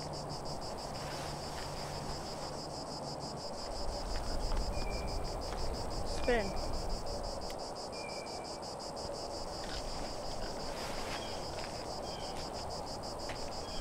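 Insects calling in a steady, high, fast-pulsing trill.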